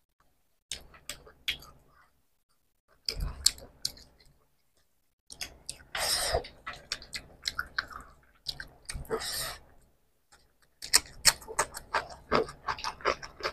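Close-miked eating sounds of two people eating rice and spicy mutton curry by hand: wet chewing, lip-smacking and squelching, in bursts with short pauses. About six and nine seconds in come two longer hiss-like sounds.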